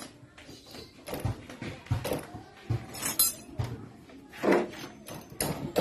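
Irregular metallic clinks and knocks of hand tools working on a scooter's front disc brake caliper, the loudest a short sharp sound about four and a half seconds in.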